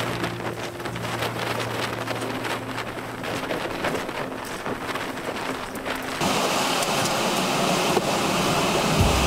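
Hurricane-force wind and heavy rain, a steady rushing noise that buffets the microphone. Low steady music tones sit underneath in the first few seconds. About six seconds in, the wind noise jumps suddenly louder.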